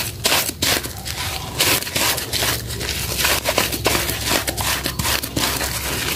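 Soaked Harmony melon soap bar and a scrub sponge squeezed and kneaded by hand in a basin of water, the thick lather squelching in many quick, irregular squeezes.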